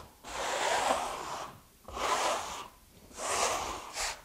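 Trowel scraping wet base coat across fiberglass mesh in three rough swishing strokes, each about a second long, working the base coat up through the mesh to embed it.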